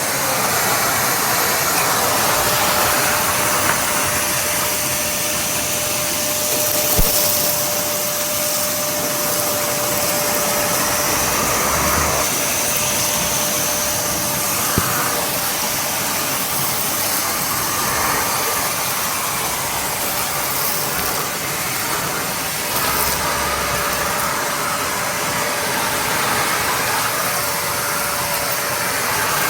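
Kärcher WD 2 Plus wet-and-dry vacuum cleaner running steadily: an even rush of air with a steady hum-like tone through it, and a couple of faint knocks.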